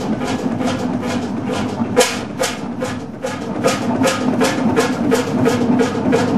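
Hundested 45 HP single-cylinder two-stroke hot-bulb (semidiesel) marine engine running, its exhaust beats coming evenly at about four to five a second, with one louder beat about two seconds in.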